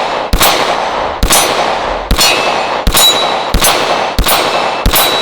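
Sig Sauer P226 Legion 9mm pistol fired in single action, seven shots in a steady cadence a little under a second apart. Each shot is followed by the metallic ringing of a struck steel target.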